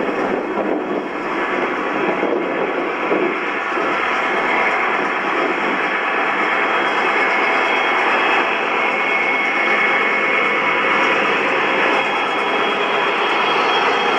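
Fleischmann H0 model train running on the layout's track: a steady whirring rumble of wheels on rails and the model's motor. It grows slightly louder as a model diesel locomotive with tank wagons approaches, and a faint thin whine rides on top.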